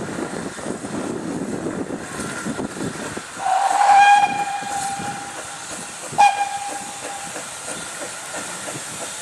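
GWR steam railmotor No. 93 coming on with a low rumble, then sounding its steam whistle: one long blast about three and a half seconds in and a shorter one a couple of seconds later.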